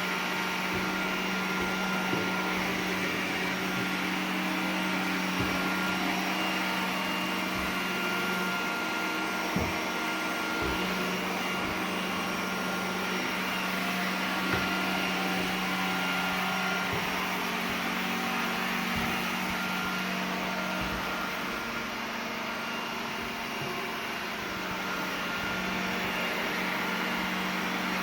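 iRobot Roomba 980 robot vacuum running with a steady motor hum, with a few brief knocks along the way.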